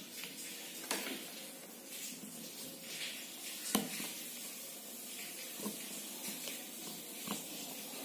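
Faint steady hiss with four small clicks, the loudest near the middle, as a piezo buzzer and jumper wire leads are pressed into a plastic solderless breadboard.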